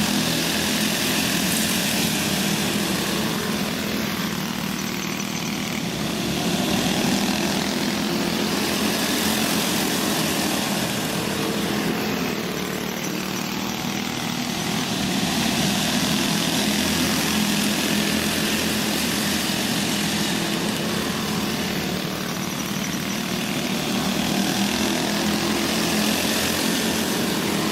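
Several four-stroke racing go-kart engines running together on a dirt oval. The sound swells and fades roughly every nine seconds as the pack laps past.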